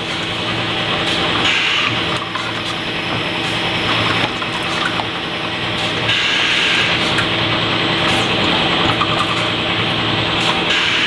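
Bottling-plant machinery running with a steady hum, broken by irregular clicks and short rushes of noise.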